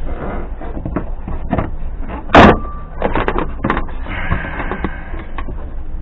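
Knocks, clicks and clatter of parts and tools being handled inside a junked car, with one loud sharp bang about two and a half seconds in that rings briefly.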